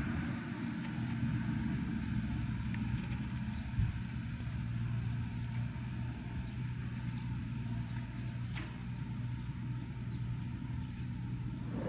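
A steady low rumble with a hum under it, and a few faint, short high chirps now and then.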